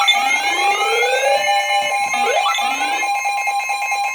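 Electronic alert tones from an emergency-alert broadcast: a steady tone under rising pitch sweeps that repeat about once a second.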